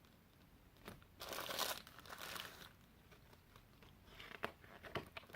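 Plastic snack wrapper being handled and torn open, crinkling in a few short bursts, the loudest a little over a second in, with some small clicks of the packaging near the end.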